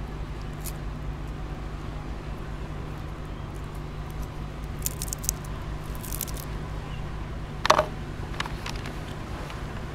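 A crisp seaweed-and-almond snack strip crackling as it is handled, with a few short dry crackles around the middle. Near the end comes a single sharper knock as a clear bowl is set down on a wooden table. A steady low hum sits underneath.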